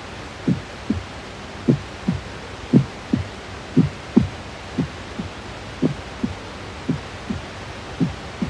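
Heartbeat sound effect: slow, even double thumps about once a second over a steady hiss.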